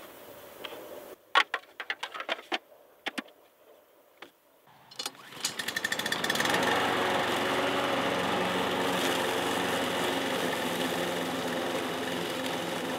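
A series of sharp clicks and knocks, then about five seconds in the petrol engine of an AL-KO Powerline 5300 BRV Aluminium lawn mower starts and settles into a loud, steady run as it mows tall grass in mulching mode.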